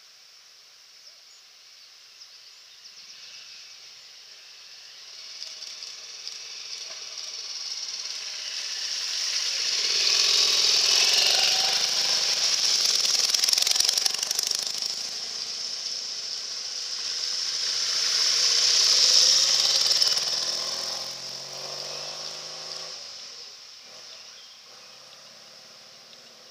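Motorcycle engines passing by out of sight: the sound builds over several seconds, peaks twice and fades away near the end.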